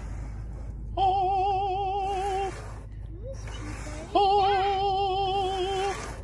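A female voice singing two long held notes with a strong, even vibrato, the second starting with an upward scoop, over the steady low rumble of the car.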